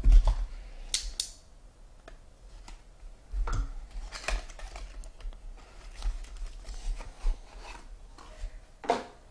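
Trading cards and their packaging handled at a table: scattered sharp clicks, taps and brief rustles, with the loudest clicks at the start and about a second in.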